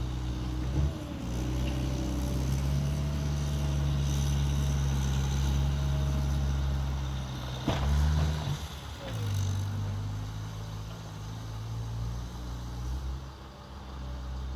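Skid steer engine running steadily under load while pushing snow, with a sharp knock about halfway through, after which the engine note drops.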